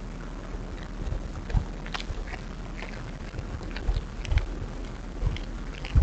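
White-tailed deer close to the microphone, stripping and chewing hemlock twigs: irregular crunching and snapping clicks, with a few low thumps.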